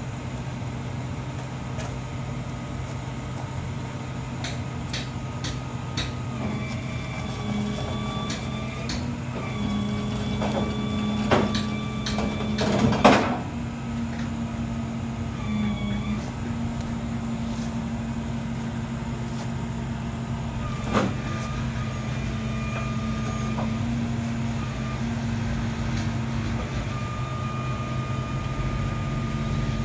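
A vehicle engine running steadily with a low hum, with intermittent high squeaking tones and a few knocks or clunks, the loudest about 13 seconds in.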